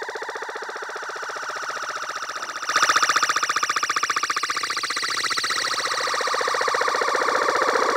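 Sequential Circuits Prophet-5 analog polyphonic synthesizer playing a fast-pulsing modulated tone. A louder, brighter note comes in nearly three seconds in, and the sound then slowly grows louder.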